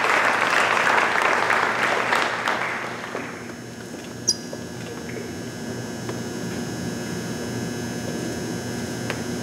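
Audience applauding, dying away after about three seconds. A single short, sharp high squeak about four seconds in, then only the steady hum of the hall.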